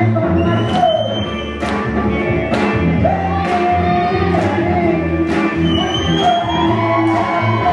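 Recorded pop music: a wavering sung vocal line over a steady beat.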